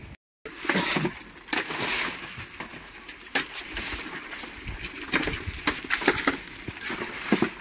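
Irregular sharp clicks and knocks, many in quick succession, after a brief dropout to silence at the very start.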